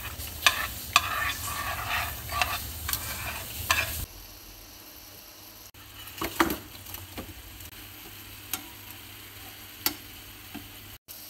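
A metal spoon stirring and scraping minced garlic, nuts and chili frying in oil in a pan, with repeated sharp clinks against the pan. About four seconds in it cuts to a softer, steady sizzle of battered chicken wings frying in bubbling oil, with a few light taps.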